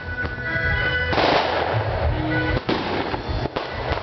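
Fireworks going off in sharp bangs over loud festival music with a heavy bass, the biggest bang about a second in followed by a brief hiss.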